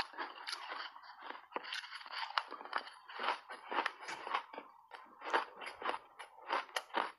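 Refrozen ice being bitten and chewed, close to a clip-on microphone: a fast, irregular run of crisp crunches, several a second.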